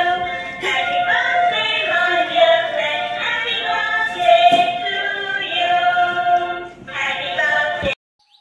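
Dancing cactus plush toy playing a song through its small built-in speaker: a sung melody with music, which cuts off suddenly near the end.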